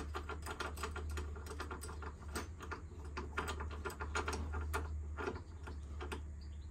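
Small irregular metal clicks and rattles from a punching bag's hanging shackle and chain being fitted by hand onto a door-mounted bracket, over a steady low hum.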